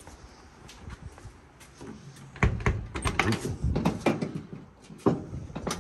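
A quick run of metal clicks and knocks, starting a bit over two seconds in and lasting about two seconds, then one sharp click near the end: the door of a square-body Chevy C10 pickup being handled on its new hinges.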